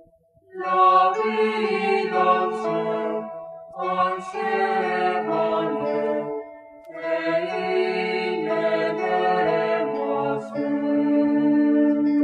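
Background music: a choir singing slow, held chords in phrases broken by short pauses.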